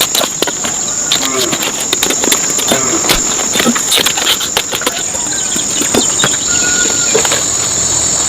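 Steady high-pitched insect buzzing, with voices and scattered clicks and knocks over it.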